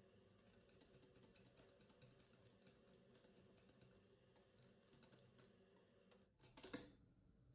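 Near silence, with faint rapid clicking of a wire whisk stirring whipped cream into a cream-cheese mixture in a glass bowl.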